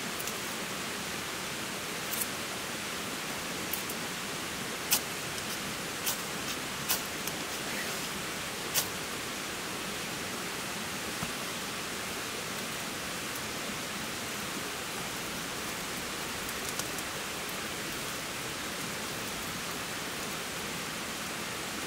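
A campfire being kindled with split birch wood and kindling: a handful of sharp snaps and clicks in the first nine seconds or so, over a steady hiss.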